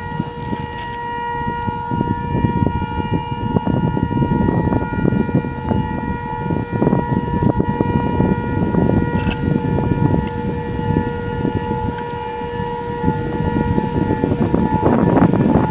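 Outdoor tornado warning siren sounding a steady tone, with gusty wind noise beneath it. Near the end the siren's lowest tone drops away as the wind grows louder.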